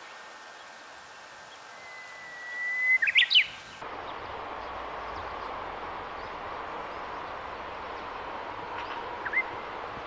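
Japanese bush warbler (uguisu) singing its 'hoo-hokekyo' song: one long held whistle that swells in loudness, then a quick run of rising and falling notes. After a cut about four seconds in, a steady background hiss, with one short rising chirp near the end.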